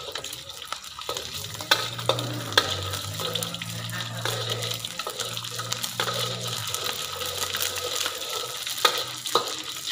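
Dried anchovies sizzling as they fry in hot oil in a wok, stirred with a metal spatula that scrapes the pan and clacks sharply against it several times.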